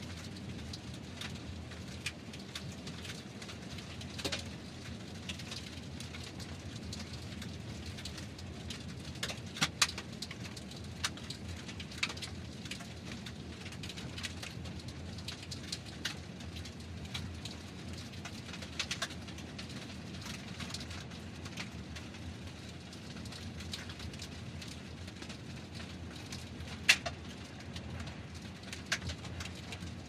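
Car tyres rolling over a road of gravel and small stones: a steady low rumble with scattered sharp clicks of stones being struck and flicked up, a few of them louder.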